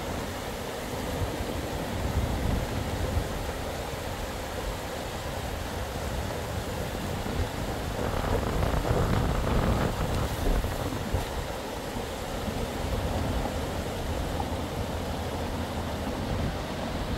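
Storm noise: wind buffeting the microphone over a steady hiss of rain, swelling stronger about eight to ten seconds in.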